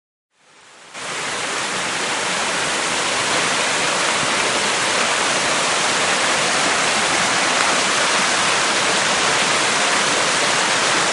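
Steady rush of a forest stream's falling water, fading in during the first second.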